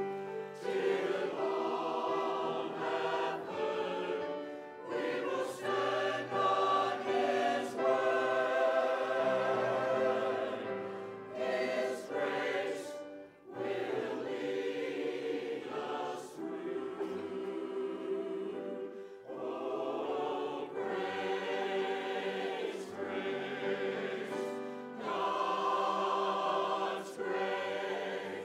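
Mixed church choir of men's and women's voices singing together, with brief breaks between phrases.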